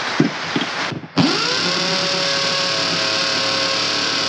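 Corded electric drill with no variable speed switched on about a second in. It spins straight up to full speed and runs steadily, after a few light handling clicks.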